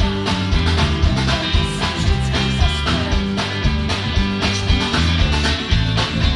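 Rock band playing live on amplified electric guitars, bass guitar and drums, with a steady beat of about two drum hits a second.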